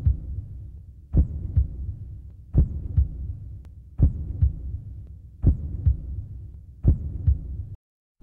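Heartbeat sound effect: a double thump, lub-dub, about every second and a half over a low hum. It cuts off shortly before the end, leaving a brief silence.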